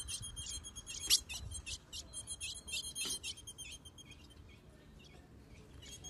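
Female ultramarine grosbeak (azulão) giving a fast run of thin, high chips, several a second, with two sharper, louder notes about one and three seconds in; the calling thins out in the second half. It is the female's soliciting call, asking the male to mate.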